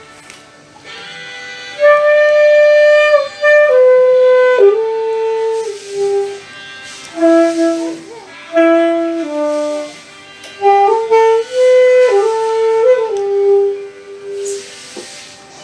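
Saxophone playing a slow melody of held notes, stepping from one pitch to the next, with short pauses between phrases.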